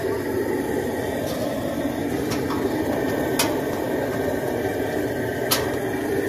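A steady mechanical drone goes on throughout, with four or five sharp metallic clicks and knocks from the steel calf cradle's gate and lever as it is worked.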